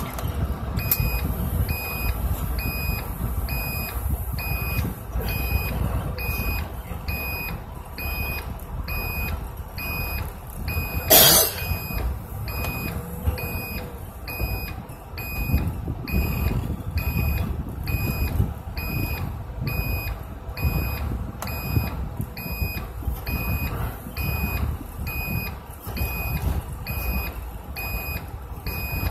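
A bus's reversing alarm beeping about once a second over the low running of its engine as the bus backs and turns. There is one short, loud hiss about a third of the way through.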